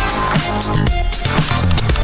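Electronic background music with a steady beat and a heavy bass line that slides in pitch.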